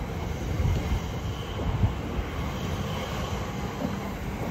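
Elizabeth Line Class 345 electric train moving slowly along the platform: a low rumble with a faint high whine over it.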